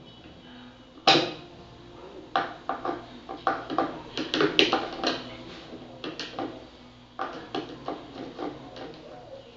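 Plastic parts of an Arno Turbo Silence Maxx electric fan knocking and clicking as they are handled and fitted together: one sharp knock about a second in, then runs of quick clicks and taps.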